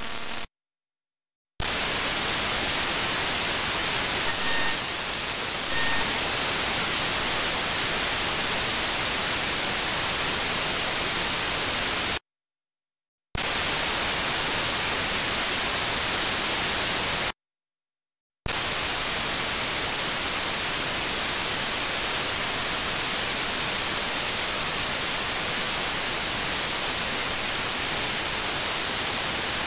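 Software-defined radio's demodulated audio giving only a steady white-noise hiss of receiver static, with no wide-band FM broadcast coming through. The hiss cuts out to dead silence three times for about a second each as the SDR's sampling rate is changed, and two faint short tones sound about five seconds in.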